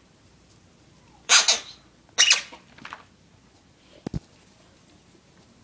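A bull terrier gives two short, hoarse barks about a second apart, then a softer one, followed later by a brief knock.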